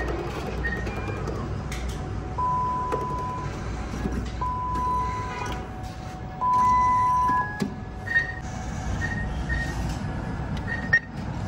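Bank cash-deposit ATM beeping as banknotes are fed into its cash slot: three steady beeps about a second long, two seconds apart, the third the loudest. Short higher chirps repeat over a low hum, and a sharp click comes near the end.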